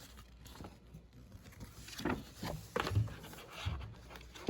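Handling of toy packaging and its contents: a few scattered clicks and knocks with light rubbing, bunched together about two to three seconds in.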